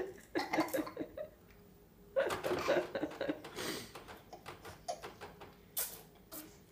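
Toddlers babbling and making short vocal sounds, with a couple of sharp clicks near the end.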